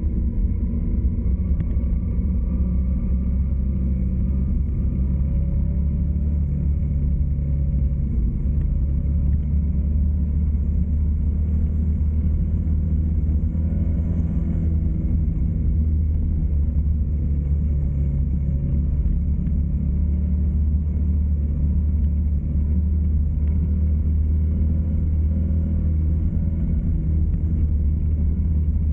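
Car driving steadily, with a continuous low engine and road rumble and slight slow changes in engine pitch.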